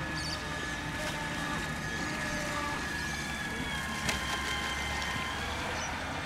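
Steady high whine of a radio-controlled scale model workboat's motor running at speed, over a low background rumble, with a single short click about four seconds in.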